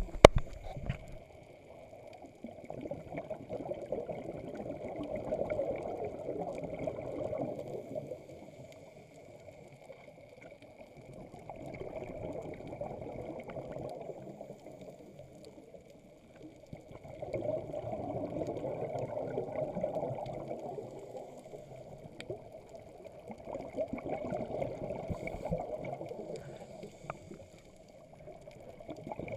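Scuba diver's exhaled bubbles venting from the regulator underwater: a gurgling rush in four spells of a few seconds each, one per breath, with quieter pauses between them. A faint steady high whine runs under it, and there is a sharp knock at the very start.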